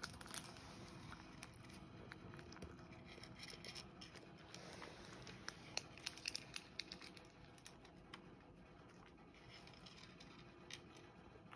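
Cat crunching dry kibble from a shallow wooden bowl: faint, irregular clicks and crunches, busiest about six seconds in.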